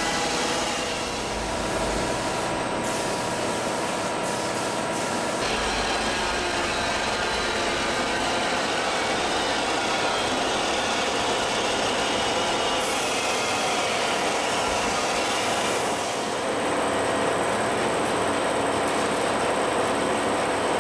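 Steady mechanical running noise with a hiss and several steady hums, from an air compressor and a paint spray gun. The sound changes abruptly about five seconds in and again around sixteen seconds.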